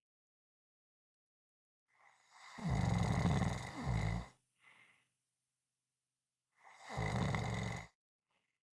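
Loud snoring from a sleeper, one slow snore at a time with silence between them. A long snore comes about two seconds in and breaks into a second, shorter pull, followed by a faint breath. A second snore comes about seven seconds in.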